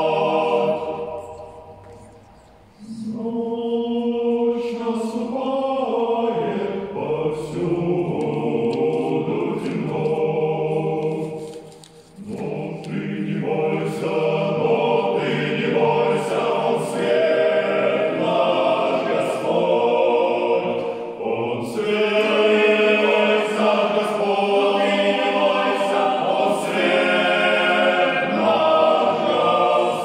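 Male choir singing a sacred song in full voice. The sound dies away into a short pause about two seconds in and again about twelve seconds in, then the singing resumes.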